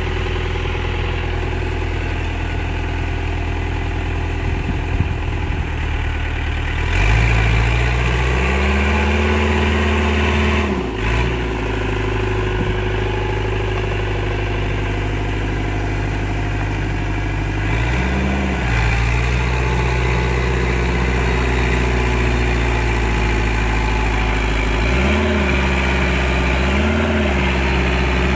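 Tractor's diesel engine running steadily, then stepping up to a higher speed about seven seconds in. After that it dips and picks up again several times, with three quick rev dips close together near the end.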